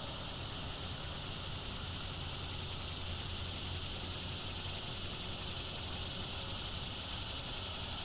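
Steady outdoor background noise at a bald eagle nest: an even high-pitched hiss over a low rumble, with no calls from the eagle.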